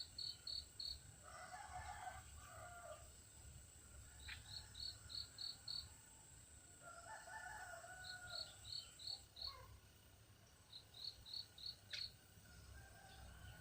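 Faint rooster crowing twice. Between the crows a bird repeats four quick runs of five or six short high notes, over a steady high insect drone that stops about nine seconds in.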